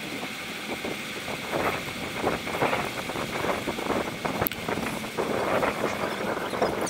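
Wind rushing over the microphone of a camera on a moving bicycle, with irregular light rattling as the bike rolls along the track.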